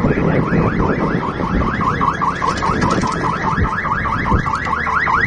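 Ambulance's electronic siren in a fast yelp, about four rising-and-falling whoops a second. It comes in about a second and a half in and grows louder as the ambulance approaches.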